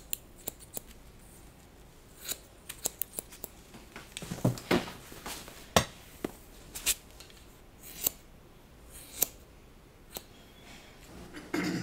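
Scissors snipping in short, sharp, irregular snips, a dozen or more, some coming in quick clusters.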